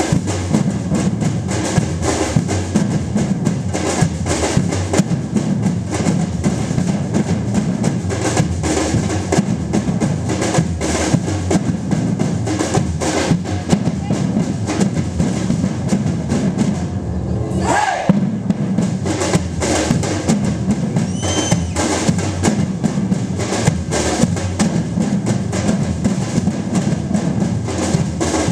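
Percussion ensemble of drums and hand percussion playing a dense, continuous rhythm. A short upward glide cuts through about two-thirds of the way in.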